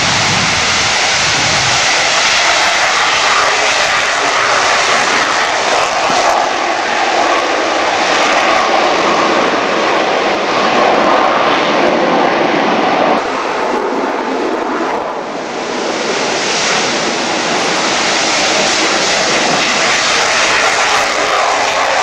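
Jet noise from F/A-18C Hornets taking off in turn, their twin turbofan engines at takeoff power: loud and continuous. It dips briefly about 14 seconds in, then builds again as the next jet rolls.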